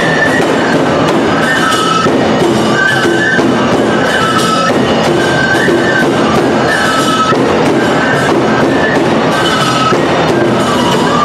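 Tsugaru neputa festival music: bamboo transverse flutes playing a short melody, repeated over and over, over the steady beat of large taiko drums.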